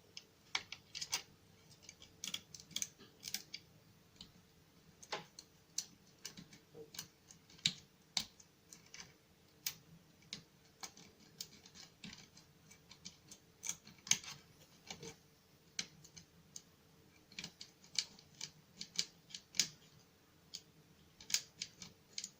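Irregular light metal clicks and scrapes, a few a second, from a lever-lock pick and tension wrench working inside a 3-lever lock: the pick lifting and setting the levers against the bolt's tension.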